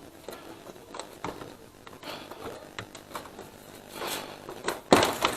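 Scattered clicks and scrapes of a motorcycle's plastic fairing panel being worked loose by hand, with a louder scraping rustle near the end.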